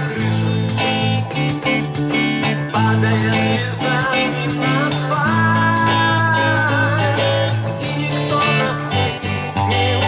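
Music: guitar chords played in a steady rhythm under a melody line whose long held notes waver in pitch.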